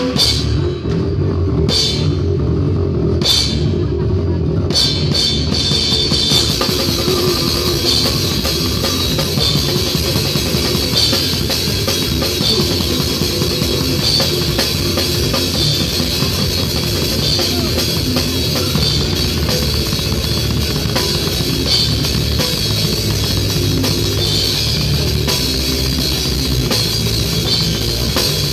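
Live heavy metal band playing loud and fast, heard from right beside the drum kit: a few separate cymbal crashes in the first seconds, then constant drumming and cymbals over the rest of the band.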